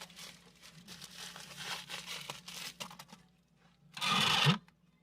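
Packaging rustling and crinkling as a freshly unwrapped balisong is handled, with small clicks. About four seconds in comes a short, louder hissing rustle, and then it goes quiet.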